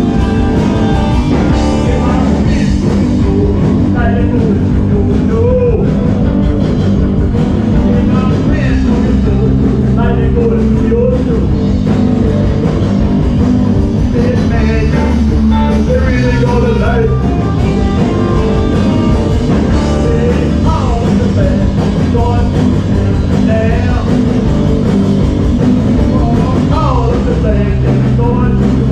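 Rock music with singing and guitar, loud and steady.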